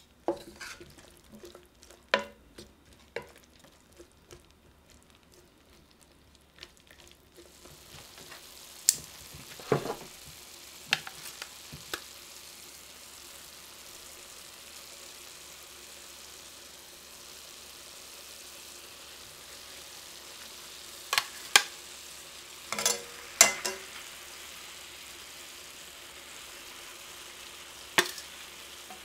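Mushrooms and onion cooking in a stainless steel pot, stirred with a wooden spatula that scrapes and taps the pan. About seven seconds in, a steady sizzle sets in, broken by sharp metallic clicks of tongs against the pot as chicken thighs are laid on top.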